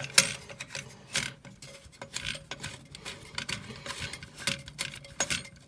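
Small metallic clicks and taps from the brass valve fittings and back nuts under a Baxi Platinum combi boiler as the nuts are slackened off, an irregular scatter of light clinks several times a second.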